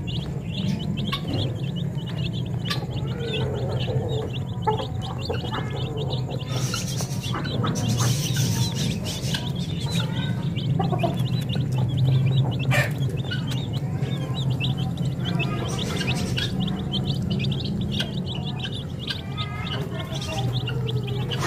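A crowd of young chicks peeping nonstop, many short high cheeps overlapping, over a steady low hum.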